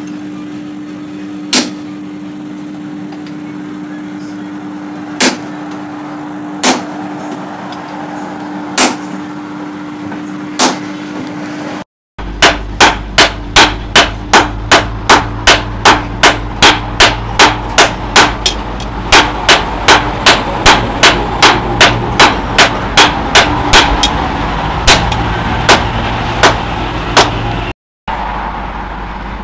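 Hand hammer striking a red-hot rebar blade on a cylindrical steel post anvil. First come five widely spaced blows, then a fast, steady run of blows at about two to three a second, all over a steady low hum.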